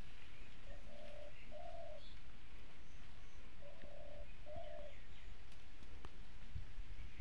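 A dove cooing twice, each call a pair of steady, even notes. Under it is the steady hiss of small fish frying in oil in a wok, with a few light clicks of the spatula.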